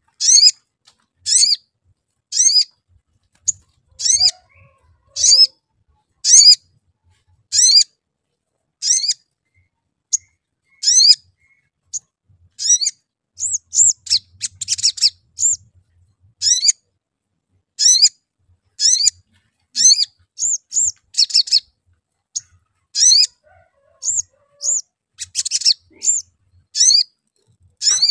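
Male olive-backed sunbird calling: a sharp, high 'cuit' chirp repeated about once a second, with a couple of rapid chattering trills ('crecet') mixed in from about halfway.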